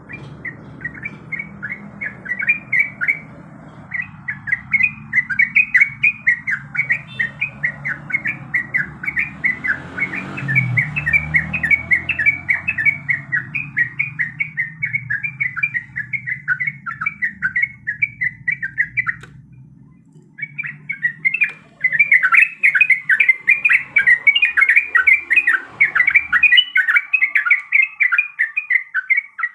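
Yellow-vented bulbul (trucukan) singing: long runs of quick, bubbly, chattering notes with a brief pause about two thirds of the way through, over a low background hum that stops near the end.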